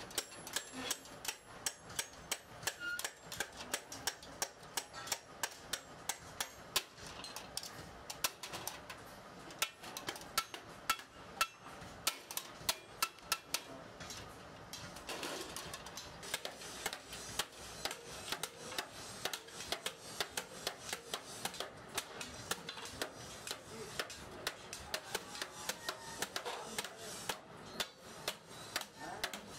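Hammer blows on metal in a workshop: quick, uneven strikes, several a second, over a steady background hiss.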